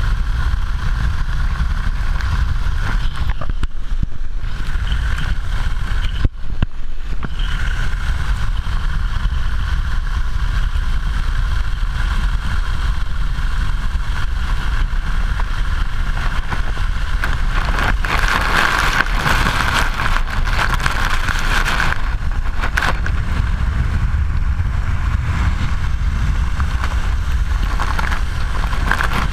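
Steady rush of wind buffeting a chest-mounted action camera's microphone, mixed with the hiss of spray thrown up as a barefoot water skier skims the water at speed behind a towboat. The spray hiss grows louder for a few seconds a little past halfway through.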